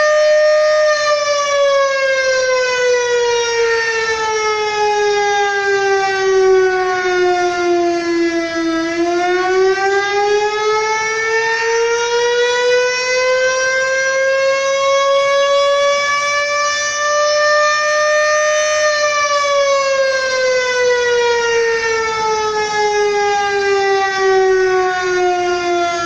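STH-10 fire station siren sounding a slow wail, calling out the fire company: its pitch sinks for about nine seconds, climbs back up over the next ten, then sinks again near the end.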